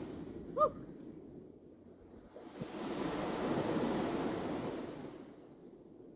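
Small waves washing onto a sandy beach, the surge swelling and fading about every four seconds. A brief pitched chirp sounds less than a second in.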